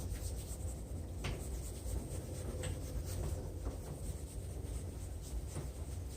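Fine-grit sanding pad rubbing across a plastic headlight lens in faint, irregular scratchy strokes, over a low steady rumble.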